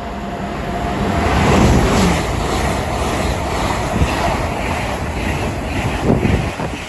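LNER Azuma (Class 801) express train passing through the station at speed: a loud rushing roar of wheels and air that builds over the first two seconds and holds, with a few short knocks from the wheels over the track.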